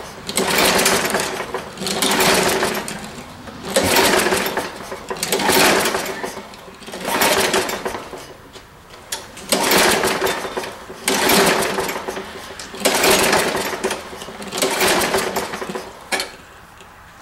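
Tecumseh single-cylinder engine on a Craftsman push mower being pull-started again and again, about nine pulls of the recoil starter each with a whir of the engine turning over, roughly every one and a half to two seconds. It does not catch, which the owner puts down to the engine not getting fuel.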